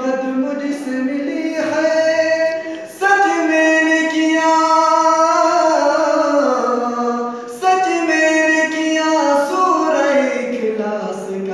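A young man singing an Urdu Shia devotional poem about Ali, unaccompanied, in long held phrases whose pitch slides between notes, with short breaths between phrases about 3 and 7.5 seconds in.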